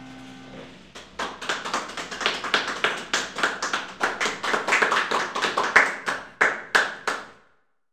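The last chord of an electronic keyboard fading away, then a small group applauding with distinct, irregular claps for about six seconds, cut off abruptly near the end.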